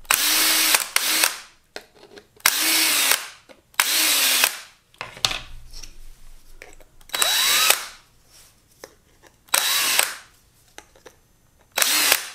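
Hand-held power drill running in six short bursts as it bores out bolt holes in 3D-printed plastic blast-gate parts, clearing out inconsistencies left by the print. The motor speed dips and rises within some bursts, with light clicks of the parts being handled between them.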